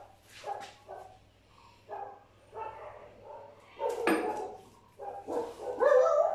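A dog barking and yipping in short, irregular bursts, with a longer, louder cry near the end.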